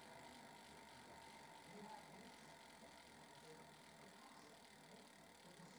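Faint ticking of a road bike's rear freehub pawls as the rear wheel spins freely in a workstand.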